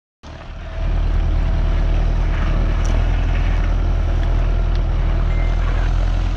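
Tractor engine running steadily at working revs while pulling a plough, cutting in suddenly just after the start.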